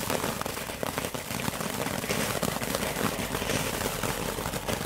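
Small ground fountain firework burning: a steady hiss of sparks with dense crackling.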